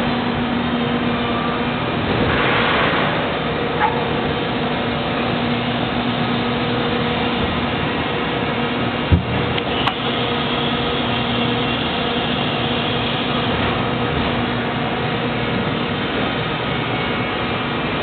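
Steady mechanical hum of an injection molding machine's hydraulic system running, with a constant low tone and its overtone. A sharp knock sounds about nine seconds in.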